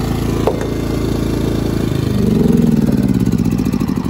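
Small portable gasoline generator engine running close by with a fast, even pulse; about two seconds in it speeds up and gets louder, then slowly eases back.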